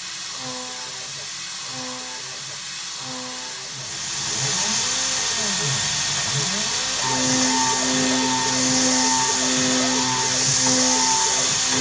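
Homemade CNC mill's spindle cutting an aluminium part, with a steady hiss from the air/coolant nozzle aimed at the cutter. The hiss gets louder about four seconds in.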